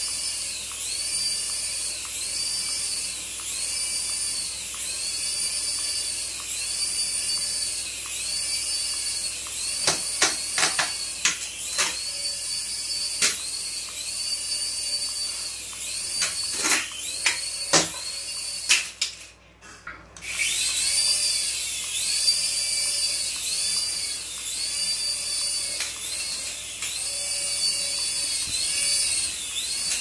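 Small toy RC helicopter's electric rotor motors whining as it hovers, the pitch swelling and falling about once a second. A string of sharp knocks comes in the middle, then the whine cuts out for about a second and starts again.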